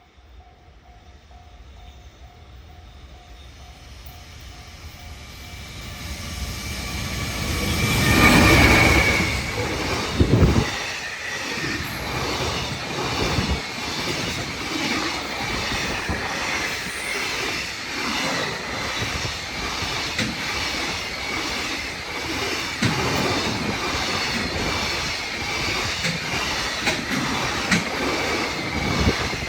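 Freight train hauled by an EF210 electric locomotive approaching and passing over a level crossing, growing louder to a peak about eight seconds in. After that comes the steady rumble of the freight wagons rolling by, with repeated clatter of wheels over rail joints. In the first few seconds the crossing's warning bell rings faintly.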